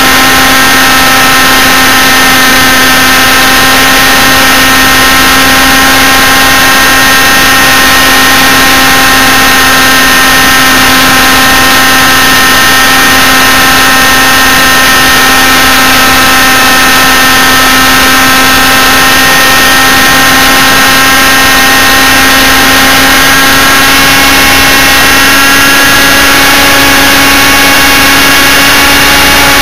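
Model helicopter's engine and rotor running steadily in flight, recorded on board, with a strong steady hum and several higher tones. The pitch creeps up slightly near the end.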